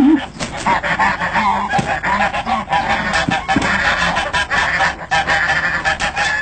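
Domestic geese honking over and over in quick successive calls. The sound cuts off suddenly near the end.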